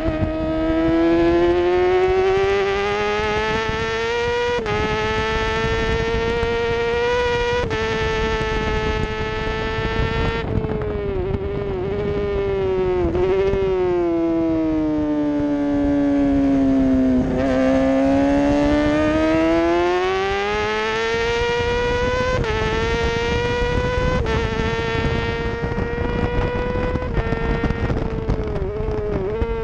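Middleweight racing motorcycle engine at high revs, heard from on the bike: its note climbs under throttle with small steps at each upshift, sags with quick dips as it slows about halfway through, then climbs again.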